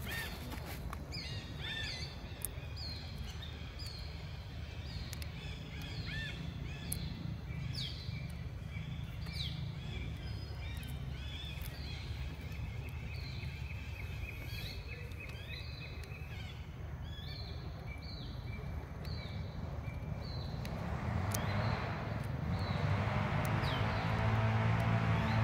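A bird calling over and over in short, high, downward-sliding chirps, about three every two seconds, over a steady low rumble. Near the end a vehicle engine grows louder.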